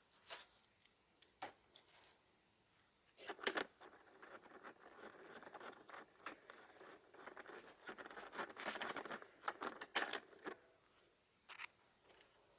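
Scattered light clicks, knocks and scraping as hand tools and motorcycle seat and body parts are handled during disassembly, loosening the seat bolt and lifting the seat off.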